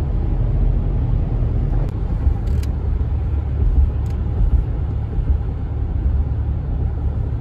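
Steady low rumble of a car driving at speed, road and engine noise heard from inside the cabin.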